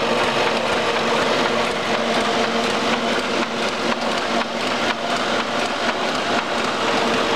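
Ryobi 3302H two-colour sheetfed offset press running: a steady, loud mechanical whir with a constant hum underneath.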